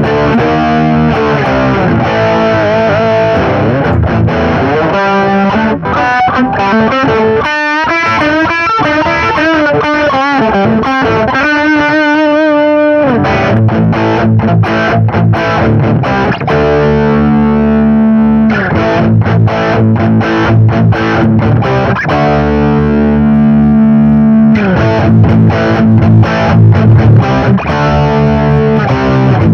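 Electric guitar played through a Marshall GV-2 Guvnor Plus distortion pedal: distorted riffs and chords, with bent, wavering notes around the middle and heavier, low chugging chords in the second half. The pedal's Deep low-bass control is being tried from its off position.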